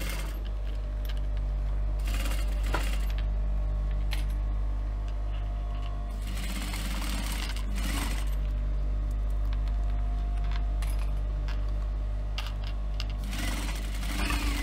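Industrial flatbed sewing machine top-stitching a faux-leather strap in short runs over the steady hum of its motor. The stitching comes in bursts about two seconds in, from about six to eight seconds, and again near the end, with a few light clicks between runs.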